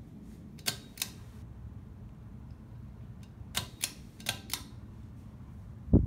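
Craftmade Civic ceiling fan running with a low, steady hum, with sharp clicks from its pull-chain speed switch being worked: two about a second in, then four more close together around the middle.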